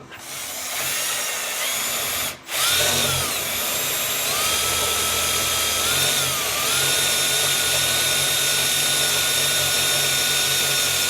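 Electric hand drill running a larger bit through a broken bolt to drill it out. It stops briefly about two seconds in and restarts, its motor whine dips in pitch under load around six seconds in, then runs steady.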